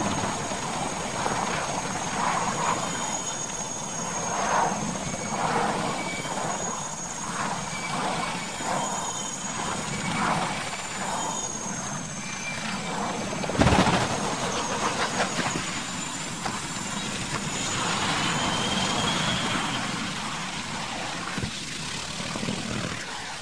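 Turbine military transport helicopter running close by: rotor and engine noise with a steady high turbine whine, and one loud sudden thud about fourteen seconds in.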